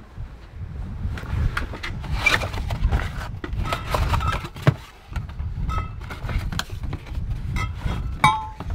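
Cardboard boxes being shifted and rummaged through in an under-bed storage locker: rustling and scraping of cardboard with irregular knocks and a few short, light clinks, over a low rumble.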